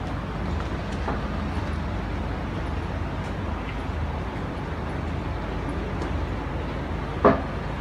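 Street traffic noise: a steady low rumble of vehicles in the road, with a single short, sharp sound near the end.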